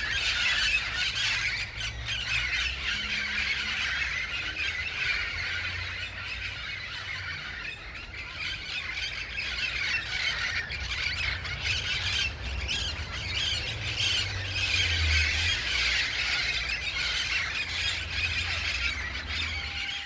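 A flock of wild green parrots calling together in a dense, continuous chorus of loud, squeaky, squawky screeches, with a low rumble underneath.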